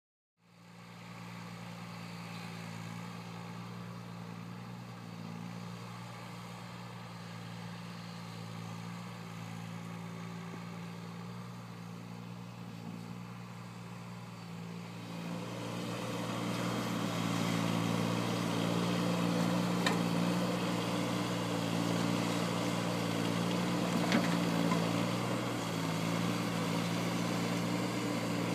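Takeuchi TB016 mini excavator's diesel engine running steadily, getting louder and busier about halfway through, with a couple of faint knocks near the end.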